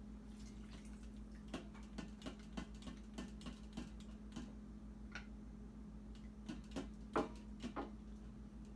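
Wooden spoon stirring soup in an Instant Pot's stainless steel inner pot, knocking irregularly against the pot in light clicks, with a louder cluster of knocks near the end, over a faint steady hum.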